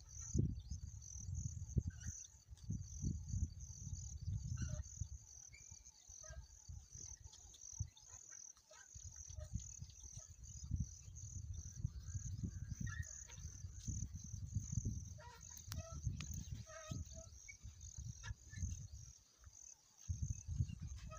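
Insects chirping in a steady, high, pulsing trill, over a low rumble that rises and falls.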